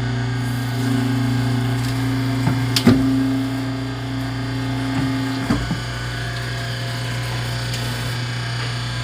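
Butter and cheese portioning machine running: a steady motor hum, with a higher tone over the first five seconds or so and a few sharp knocks, the loudest about three seconds in.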